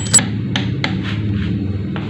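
Scattered light clicks and knocks, as of metal tools and engine parts being handled, over a steady low hum.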